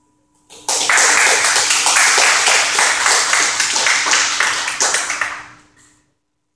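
A small group of people applauding. The clapping starts abruptly about half a second in, holds steady for several seconds, then dies away about five seconds in.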